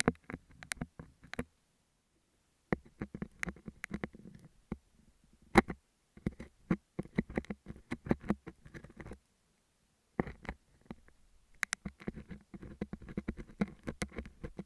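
Metal dental scaler scraping and picking at a beeswax sheet on an earphone microphone: dense crackling clicks over a low rumble, in four bursts with brief pauses after about a second and a half and again around nine seconds in.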